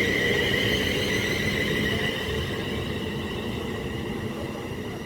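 Siemens Class 350 Desiro electric multiple units pulling away, their traction equipment giving a high whine of several layered steady tones over a running rumble, slowly fading.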